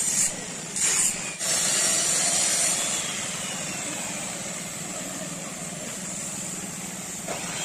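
Compressed-air paint spray gun hissing as it sprays paint: two short trigger bursts, then a long continuous pass from about a second and a half in. A steady low hum runs underneath.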